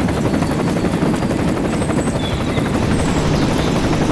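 A small motor running steadily with a fast, chopping whir.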